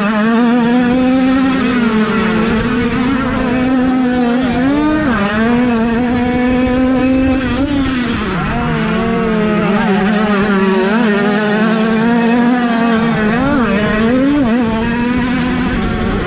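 Several 50cc two-stroke minicross bikes running at high revs on a motocross track, a steady high-pitched buzz from overlapping engines. The pitch drops and climbs again briefly a few times as riders back off and get back on the throttle.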